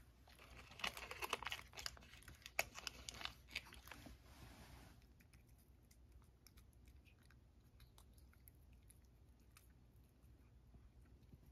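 A cat chewing small dry treats (Churu Bits) close by: a few seconds of dense crunching clicks, then only faint scattered crunches.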